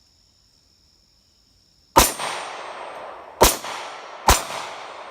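Three 9mm pistol shots from a Glock 43 fitted with its factory recoil spring. The first comes about two seconds in, the next about a second and a half later, and the last just under a second after that, each with a long echoing tail.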